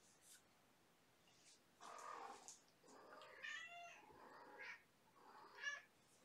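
Kittens meowing: several short, faint meows from about two seconds in.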